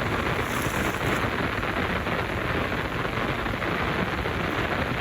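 Midea 13 kg washing machine filling, water pouring steadily into the drum.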